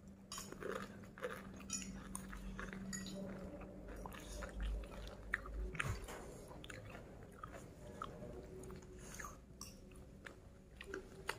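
Close-up chewing of a person eating rice and side dishes with her hand, with many small clicks and crunches, over a low steady hum that stops about six seconds in.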